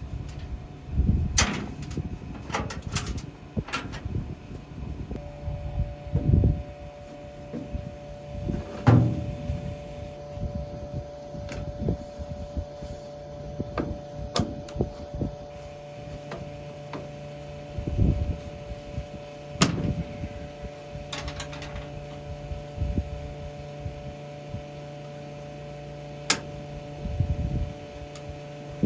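Combine running with a steady hum while its folding corn head is unfolded and readied, with scattered metal knocks and clanks.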